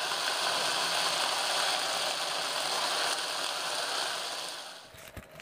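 Beef tendon, garlic and chillies sizzling in a nonstick wok as they are stir-fried with a spatula; the sizzle starts suddenly and fades out near the end.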